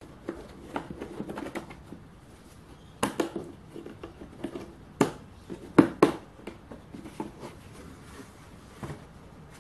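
Hands handling a hard plastic tool case: the plastic latches clicking open and the lid being lifted, a string of sharp plastic clicks and knocks with the loudest ones about five to six seconds in.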